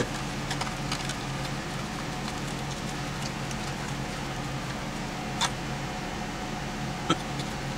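A few light clicks and taps from small parts being handled, over a steady low hum.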